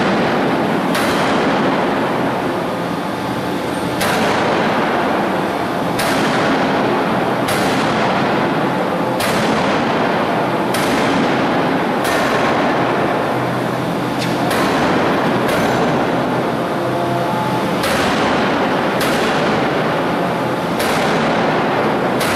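Hydraulic open-die forging hammer striking a red-hot forging on the anvil: heavy blows at uneven intervals, roughly every one to two seconds, over a constant loud machine din.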